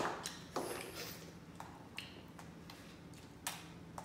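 Boiled blue crab shells being cracked and picked apart by hand: a handful of sharp, irregular snaps and clicks, the strongest right at the start and about three and a half seconds in.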